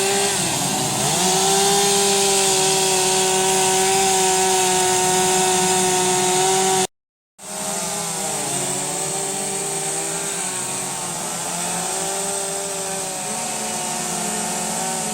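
Chainsaw running and cutting into redwood, its pitch dipping as the chain bites and wavering with the load. It cuts out briefly near the middle and then carries on at a slightly lower level.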